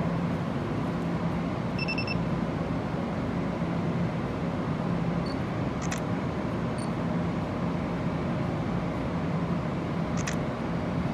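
Steady low rumble and hum of an underground train platform, with a short high electronic beep about two seconds in and a couple of faint clicks later.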